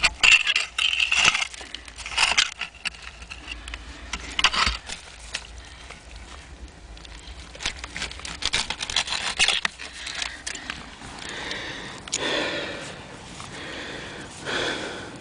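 Digging in dirt to free a buried glass milk bottle: repeated scraping with short clicks and clinks, easing off into softer rustling for the last few seconds.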